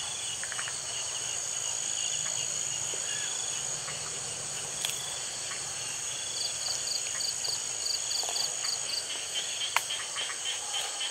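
Night-time chorus of crickets and other insects: a steady high trill, with a pulsed chirping joining about six seconds in and fast buzzing trills near the end. Two sharp clicks stand out, about five and ten seconds in.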